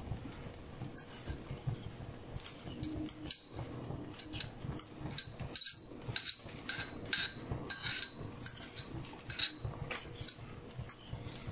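A metal spoon clinking against a bowl in a series of light, ringing taps while chopped onion is scooped out onto an omelette in the pan; the taps come thickest in the middle and later part.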